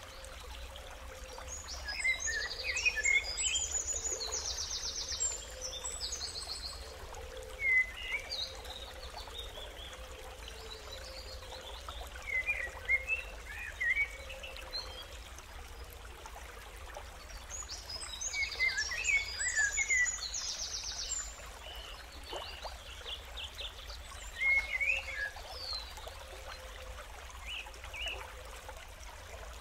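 Birds singing outdoors in phrases of rapid, varied chirps, the most elaborate about two seconds in and again around eighteen seconds, with shorter calls between. Under them runs a steady hiss of background noise, like a trickle of running water.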